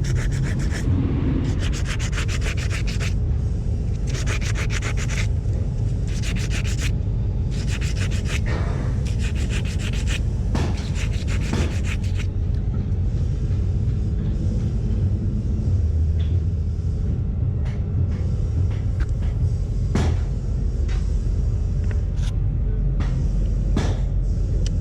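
Quick back-and-forth rubbing strokes, like a brake part being rubbed down by hand with an abrasive, in bursts of a second or two that stop about halfway through. A few sharp clicks follow later, over a steady low rumble.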